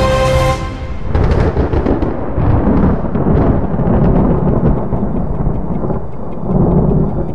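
Music cuts off in the first second, followed by rolling thunder rumbling for several seconds and swelling and easing a few times, with a last swell near the end.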